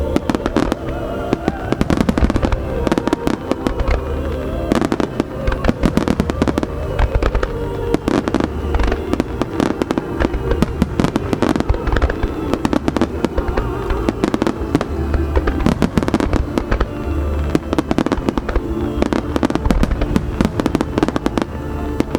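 Starmine fireworks display: a dense, continuous barrage of shell bursts and crackling reports, one after another throughout, with music playing alongside.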